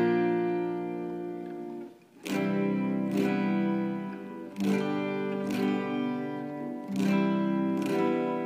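Guitar music: strummed chords left to ring. The sound dies almost away about two seconds in, then fresh chords are strummed about once a second.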